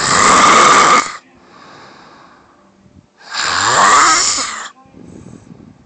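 A woman snoring loudly in her sleep: two long, harsh snores about three seconds apart, with quieter breathing between them. The second snore rises in pitch as it goes.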